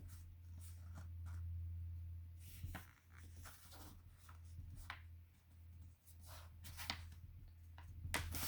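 A sheet of paper rustling and scraping in short spells as it is folded and a crease is pressed down, over a steady low hum.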